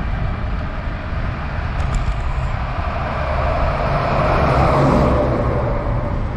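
A car passing on the road, its tyre and engine noise swelling to its loudest about four to five seconds in and then fading, over steady road and wind noise from riding a bicycle.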